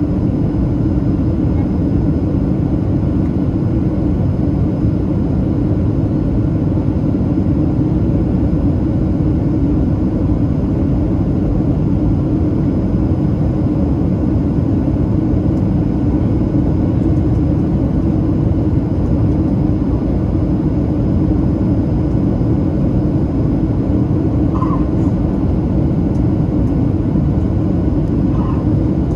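Steady cabin roar inside a Boeing 737-700 on descent, heard from a window seat over the wing: the CFM56-7B turbofans and the rush of air over the fuselage, deep and even.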